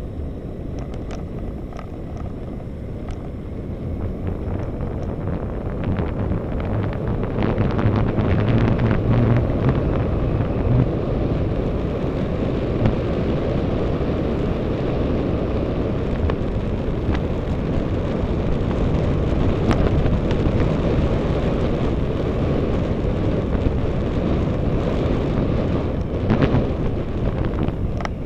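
Wind rushing over the microphone of a camera riding on a moving road bicycle, mixed with tyre noise on asphalt, with a few faint clicks. It grows louder a few seconds in as the bike picks up speed, then stays steady.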